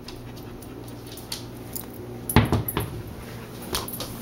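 Samoyed puppy moving about on a hardwood floor: a cluster of knocks and a thump a little past halfway, another knock near the end, with light clinking like the jingle of its collar tag.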